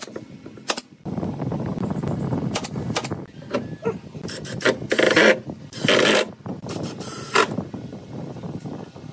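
Two sharp nail-gun shots, then a cordless drill running in spurts as it drills and drives screws into pine, with several short louder bursts around the middle.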